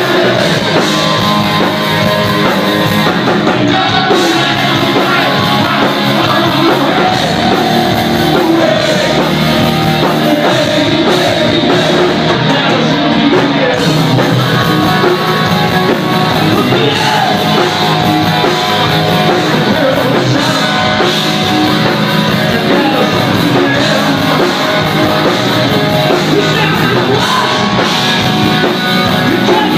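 Loud rock music with singing, running steadily throughout.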